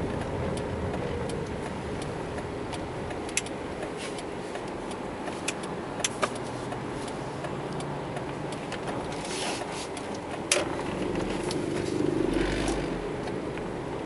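Steady engine and road noise from inside a car driving slowly, with several sharp clicks and rattles and a low rumble that swells near the end.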